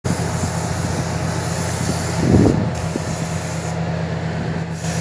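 Compressed-air paint spray gun hissing, cutting out briefly twice as the trigger is let go, over a steady motor hum.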